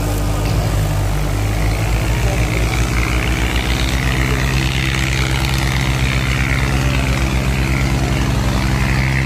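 Preet 5049 tractor's diesel engine running steadily under heavy load while dragging a fully opened disc harrow through soil. A quick, even low throb sets in about two seconds in.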